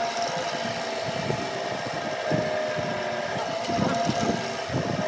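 Wood lathe running steadily with a turned wooden workpiece spinning on it: a constant whine over an uneven low rumble.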